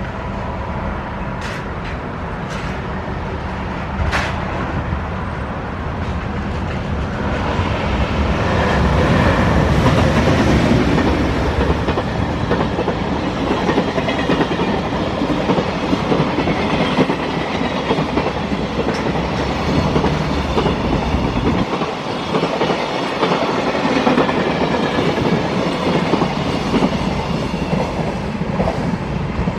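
Freight train hauled by an EH500 electric locomotive passing close by at speed. It grows louder to a peak about eight to eleven seconds in, then settles into a steady clickety-clack of the freight wagons' wheels over the rail joints, with a few sharp clicks in the first few seconds.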